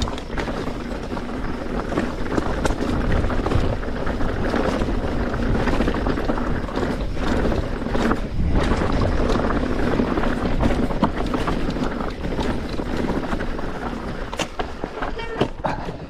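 Mountain bike riding fast down a rocky trail: tyres running over loose stones and the bike rattling, with many sharp knocks from rocks and wind rushing over the microphone.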